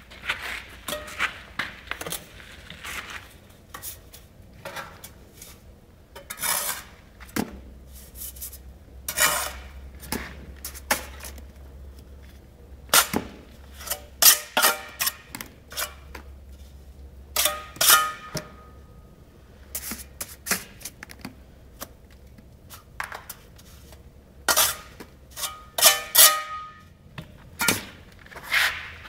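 Steel bricklaying trowel scraping mortar and tapping bricks as they are bedded into place: irregular sharp clinks, scrapes and knocks, a few ringing briefly.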